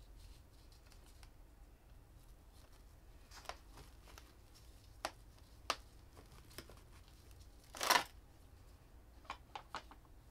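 Hands working succulents into a small pot and pushing in fixing pins: a few scattered soft clicks and rustles, a louder rustle about eight seconds in, then a quick run of small clicks near the end.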